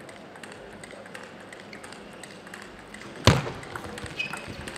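Table tennis rally: faint ticks of the ball, then one loud sharp crack of a hard racket hit about three seconds in, followed by quicker light ticks as play goes on.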